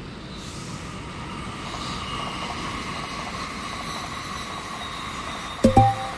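Electric train approaching on the line, its running noise growing steadily louder, with a high whine above it. Near the end comes one sharp knock with a brief ring.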